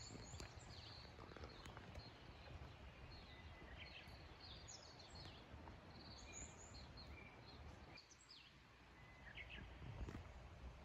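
Faint birds chirping: many short, high calls scattered throughout, over faint low background noise.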